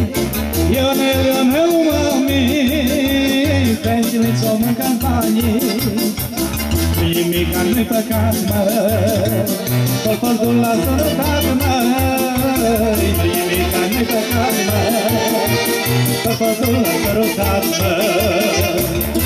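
Live Romanian folk dance music from a band: an instrumental stretch with a wavering lead melody over a steady, even bass beat.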